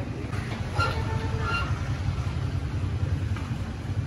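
Stainless-steel dish and pot knocking together, with brief metallic rings about a second in and again shortly after, over a steady low rumble.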